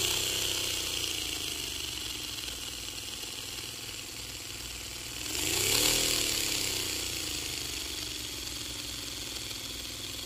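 Paper V-twin air engine running on compressed air: a steady hiss of air with a running hum whose pitch sags slowly, then rises and swells briefly about six seconds in before settling again.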